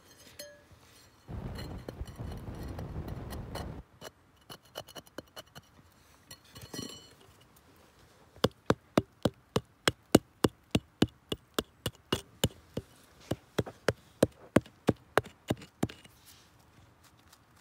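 Rock pick tapping and chipping at crumbly volcanic tuff to work an augite crystal loose: a few light scattered taps, then a fast run of sharp clicks, about four a second, for most of the second half. A brief low rumble near the start.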